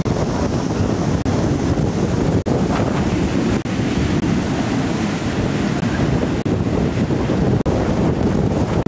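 Loud, steady rushing roar, likely from the jet engines of an Ilyushin Il-86 airliner, with wind buffeting the microphone. It is cut by brief dropouts about every second or so.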